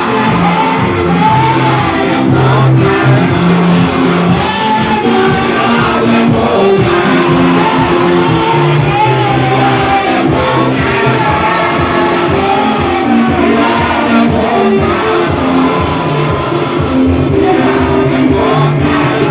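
Church worship music: a sung melody over instruments holding steady chords, with shouts from the congregation.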